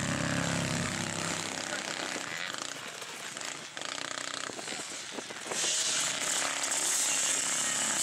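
Quad bike engines running; about five and a half seconds in, a much louder, hissing engine sound comes in close by.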